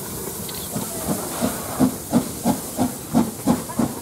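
Steam locomotive A 428 working away: steady hiss of steam, with exhaust chuffs starting about a second in and beating evenly at about three a second. Steam blows from the open cylinder drain cocks.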